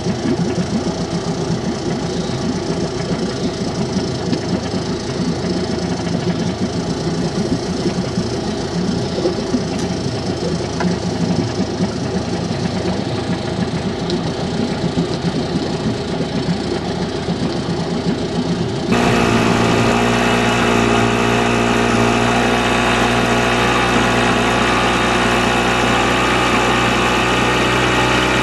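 Outboard motor of a Maxus 24 sailing yacht running steadily under way. About two-thirds of the way through the sound changes abruptly to a louder, more even hum.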